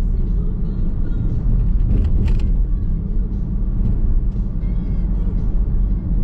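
Nissan X-Trail hybrid driving on the road, heard from inside the cabin: a steady low rumble of tyres and road. A short sharp click a little over two seconds in.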